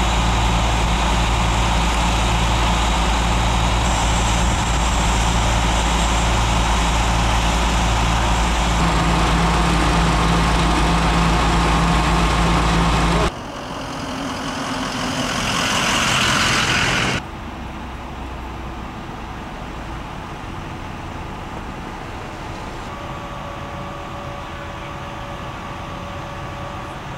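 A fire truck's engine idles loud and steady, with a slow low pulsing. The sound cuts off abruptly about 13 seconds in. A rushing noise then swells for a few seconds and stops, leaving a quieter steady hum.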